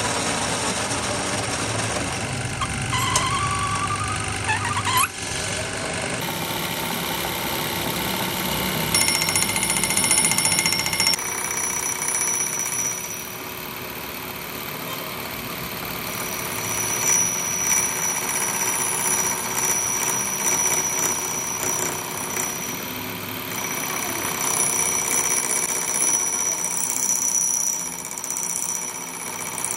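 Metal lathe running with a large steel gear spinning in its chuck: a steady machine hum, with a high-pitched ringing that comes and goes from about nine seconds in.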